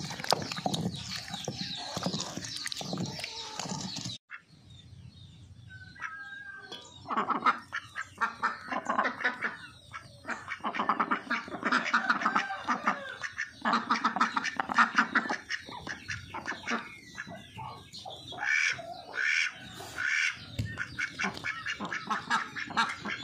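Domestic ducks quacking, many loud quacks in quick runs. The first four seconds, before a sudden cut, hold a gritty scraping of grated coconut being ground under a round stone in a stone grinding mortar.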